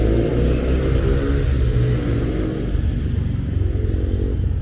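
A motor vehicle engine running, its pitch rising and falling.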